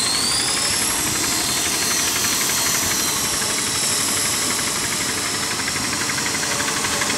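Electric quadcopter hovering in altitude hold, its four motors and propellers giving a steady buzz with a high whine. The whine rises in pitch over the first second, then holds steady while the craft keeps its height by itself.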